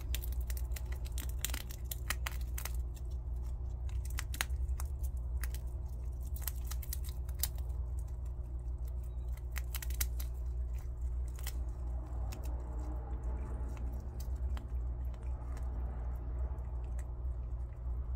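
Two prairie dogs gnawing and crunching nuts: quick, sharp cracks and crunches, densest in the first seven seconds and sparser after, over a steady low hum.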